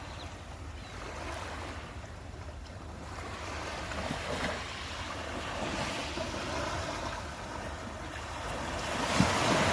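Ocean surf: a steady wash of waves breaking on the shore that swells and ebbs, with the loudest wave crashing near the end.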